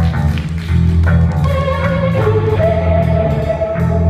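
Live rock band playing electric guitars, bass guitar and a drum kit, with long held notes over the second half.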